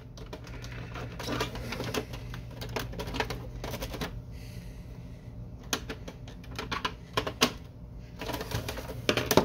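Irregular series of sharp plastic clicks and snaps as a flathead screwdriver pries at the plastic clips of a Canon Pixma MG5220 inkjet printer's housing, with the clicks coming thicker in the last few seconds.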